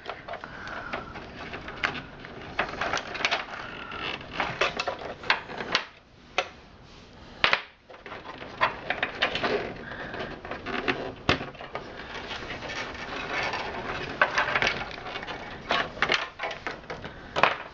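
Plastic cables and connectors being handled and pulled loose inside a desktop PC case: irregular clicks and knocks with rustling in between.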